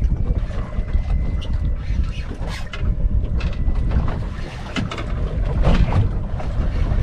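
Wind buffeting the microphone on an open boat at sea: a loud, uneven low rumble, with scattered light knocks and clicks through it.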